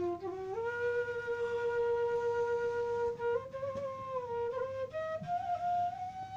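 Background music: a slow solo melody on a single instrument, long held notes climbing in small steps.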